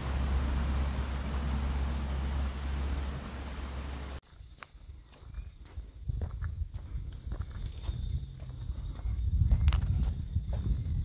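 A small waterfall rushes steadily, with a low wind rumble on the microphone, for the first four seconds. After an abrupt cut, an insect chirps high and evenly, about three chirps a second, over footsteps on a paved lane.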